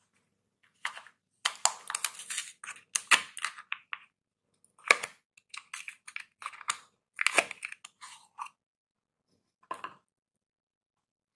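A soap bar's wrapper being torn open and peeled off by hand: irregular bursts of crinkling and tearing, starting about a second in, with one last short rustle near the end.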